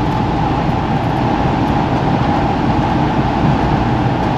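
Steady road and engine noise inside a moving motorhome's cab, with a constant tone running through it.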